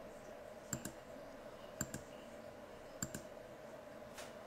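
Computer mouse button clicking, four short clicks about a second apart, some heard as a quick double tick, over a faint steady hum.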